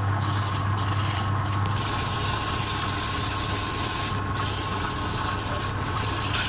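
Sandpaper pressed against a wooden vase spinning on a wood lathe: a steady sanding hiss over the lathe motor's low hum. The hiss breaks off briefly a few times.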